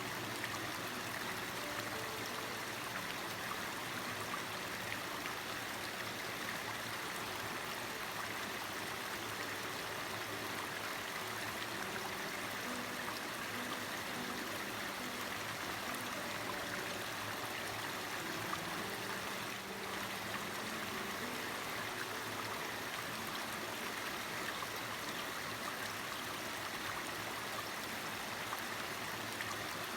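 A mountain valley stream with water running and splashing over rocks in a steady, unbroken rush. Faint soft music tones sit low underneath.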